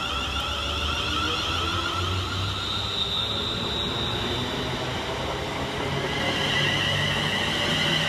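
Class 350 Desiro electric multiple unit running past close by and away, wheels rumbling on the rails under an electric traction whine that rises slowly in pitch as it gathers speed.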